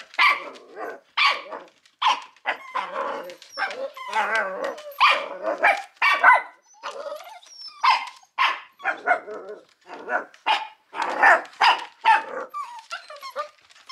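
Puppies barking at a kitten: a string of short barks, one or two a second, keeping on without a real pause. It is a fearful, defensive reaction to the cat.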